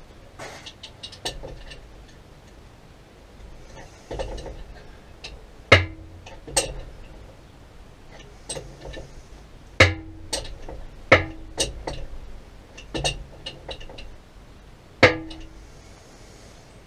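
Irregular metallic knocks and clinks as tools and fittings strike the bore pump's metal pipework, several with a brief ringing tone.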